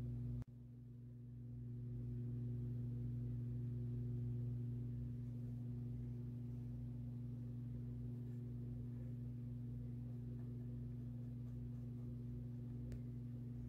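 Steady low electrical hum of a few constant tones. It cuts out abruptly about half a second in, then swells back. A faint click comes near the end.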